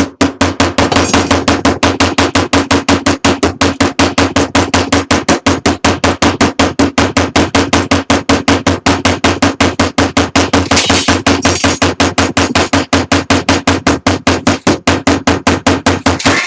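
Rapid, even hammer blows on a solid soft-steel rivet, about five a second, peening its tail into a formed head with a convex peen. The blows are loud and start abruptly, with a steady low ring from the struck metal beneath them.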